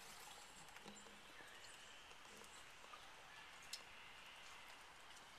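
Near silence: faint outdoor background hiss with a few soft ticks, one a little louder near the end.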